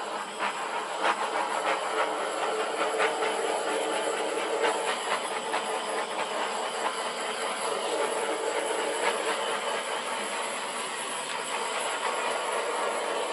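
Handheld torch flame burning with a steady hiss and light crackling, passed over wet acrylic pour paint to pop air bubbles and bring up cells.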